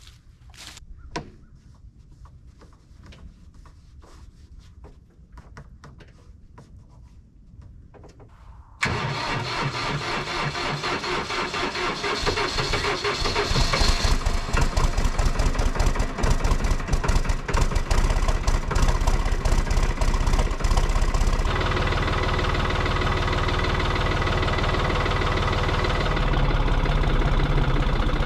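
A New Holland compact tractor's diesel engine starts abruptly about nine seconds in and runs, getting louder around 13 seconds, then settles to a steadier, deeper running sound near the end. A few faint clicks come before it starts.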